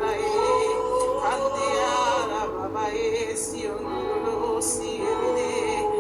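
Spontaneous worship singing in tongues: long held vocal notes that waver in pitch, with a few short sibilant syllables between them.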